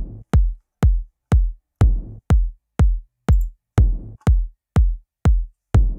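Programmed electronic kick drum playing a steady four-on-the-floor pattern at about two hits a second (122 BPM), layered with a deep, low tom sample pitched down 14 semitones with its low frequencies carved out. Each hit is a sharp click with a deep, decaying boom.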